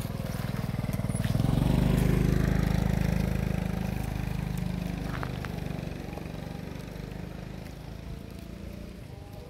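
A motorbike engine passing on the road, growing louder to a peak about two seconds in, then fading slowly away.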